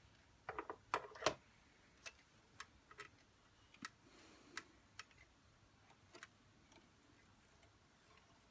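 Scattered light clicks and taps of a Queen Deluxe 222 sewing machine being handled for threading: a small cluster about half a second to a second and a half in, then sparser single ticks.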